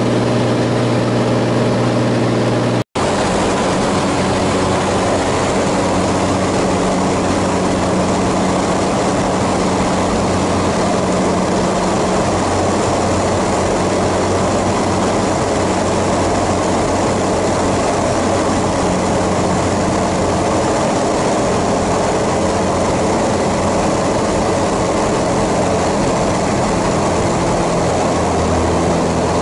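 Single-engine light aircraft's piston engine and propeller running steadily, heard from inside the cockpit as a loud, even drone with airflow noise. The sound cuts out for an instant about three seconds in and resumes at a slightly different pitch.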